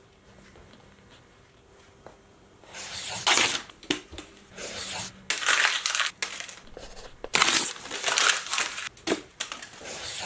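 A sheet of notebook paper being crumpled by hand into a ball, in a series of crinkling bursts starting nearly three seconds in.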